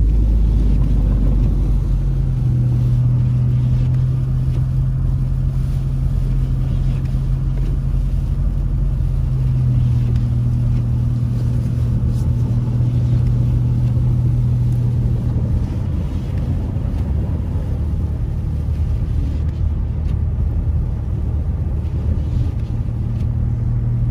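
Inside a car driving on a snow-covered road: the engine and tyres give a steady low rumble and hum, the hum shifting slightly a couple of times.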